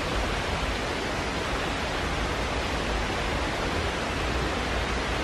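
Rushing water of a rocky forest creek tumbling over small cascades: a steady, even hiss.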